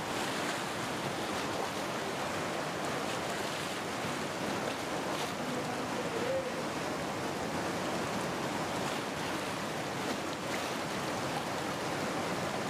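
The Ganga river in flood, fast water rushing with a steady noise.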